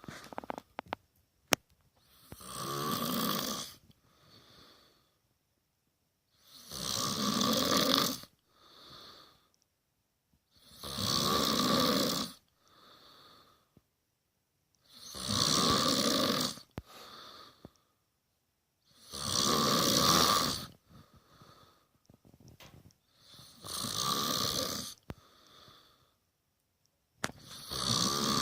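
A man snoring in a steady rhythm: a long snore about every four seconds, each followed by a shorter, softer breath.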